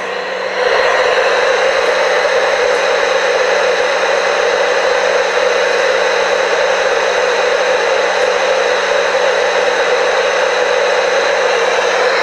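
Old television switched on while rewired as an oscilloscope, giving out loud, steady static hiss with a constant low hum underneath.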